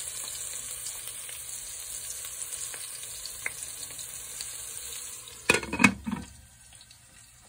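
Beef chunks sizzling steadily in a metal stockpot on low heat. About five and a half seconds in, a metal lid clanks a few times as it is set onto the pot, and the sizzle then goes faint and muffled under it.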